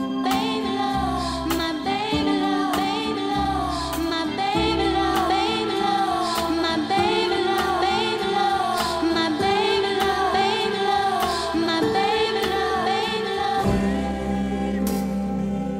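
Background music: sung vocals carrying a gliding melody over held bass notes and a steady beat.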